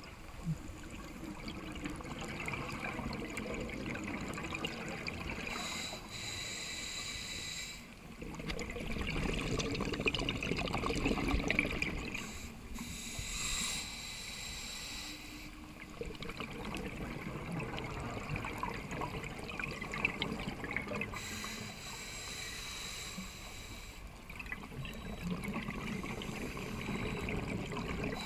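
Scuba regulator breathing heard underwater: slow breaths a few seconds apart, each a short hissing inhale followed by a longer rush of exhaled bubbles.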